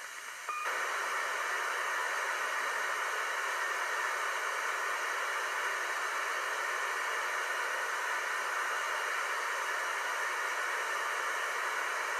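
FM receiver static on the 2-metre amateur band: steady hiss with the squelch open on an empty channel between transmissions. It comes up about half a second in, after a short quieter moment with a brief faint tone.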